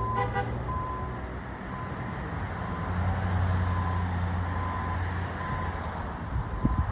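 A vehicle engine running, its low hum swelling in the middle, with a high single-pitch beep repeating about once a second. A few knocks come near the end.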